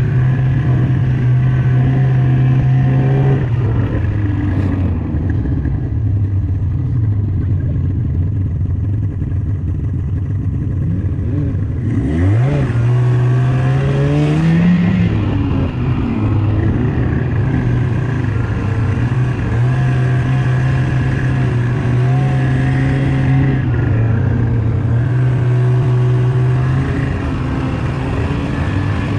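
Snowmobile engine running under way, steady but changing speed: it drops back a few seconds in, revs up in a rising whine about halfway through, and holds a higher pitch again later before easing off near the end.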